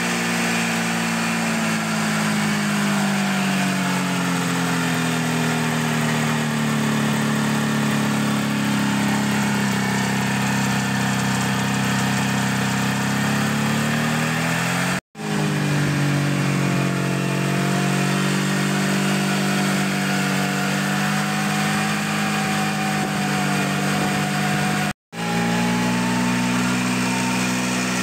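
Ockelbo snowmobile's two-stroke engine running at a fast idle on its first run after five years in storage. Its speed sags and then climbs back in the first half, then holds steady. The sound breaks off briefly twice.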